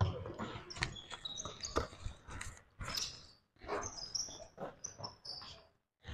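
Pickup basketball on a hardwood gym floor: sneakers squeaking in short high chirps and a basketball bouncing in dull thuds under about a second apart. The squeaks cluster around two seconds in and again from about four to five and a half seconds.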